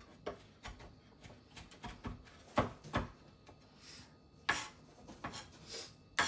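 Knife knocking and scraping on a cutting board while chopping and gathering chopped cilantro: irregular sharp taps, the two loudest about two and a half and three seconds in, with a couple of short scrapes later.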